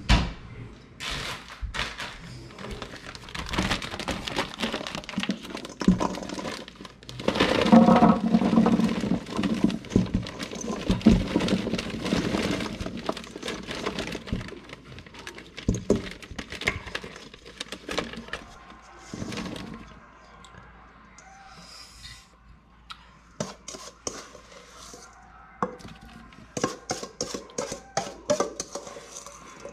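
Crabapples poured from a stainless steel bowl into a plastic zipper bag: a busy clatter of small knocks and rattles as the fruit tumbles, with the plastic bag crinkling. The clatter is heaviest for several seconds around the middle, then thins to scattered clicks.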